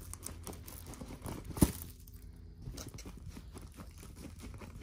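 A plastic-film-covered diamond painting canvas being rolled up by hand, crinkling and rustling in quick little crackles. One sharper crackle comes about a second and a half in.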